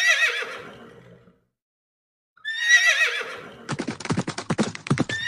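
Horse whinnying twice, each a wavering call about a second long. Then, about three and a half seconds in, a fast run of galloping hoofbeats starts.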